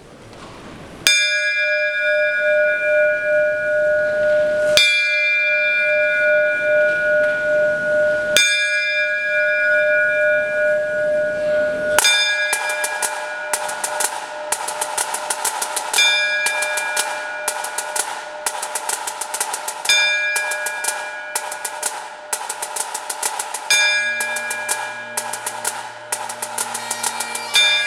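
Bells tolling: four single strokes about three and a half seconds apart, each left to ring out, then a quicker peal of many strokes. Near the end the bagpipe drones come in with a low steady hum under the bells.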